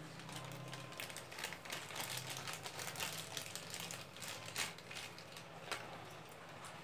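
Plastic packaging and small toy parts being handled: faint irregular rustling with scattered light clicks.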